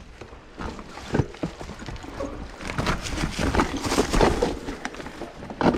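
Downhill mountain bike and rider on a steep, rough trail: irregular scraping, scuffing and knocking on dirt and rock, busier after about two and a half seconds, with a sharp knock near the end.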